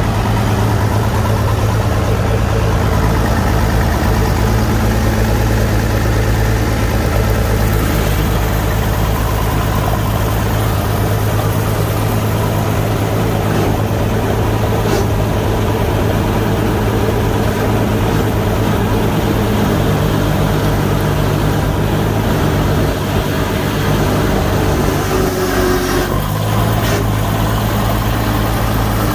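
Old straight-piped tractor engine idling steadily, just started on a shot of ether as a cold start.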